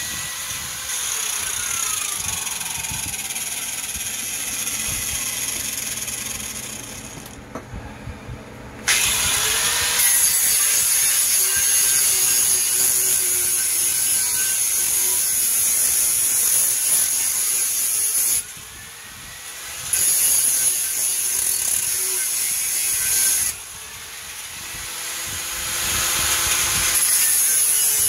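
Handheld angle grinder with a cut-off disc cutting through a piece of aluminum angle clamped in a bench vise: a loud, high-pitched grinding whine. The cutting breaks off three times, the motor winding down and spinning back up between cuts.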